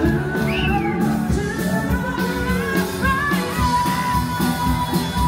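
Live band playing an upbeat rock song over a steady drum beat, a singer holding one long note near the end.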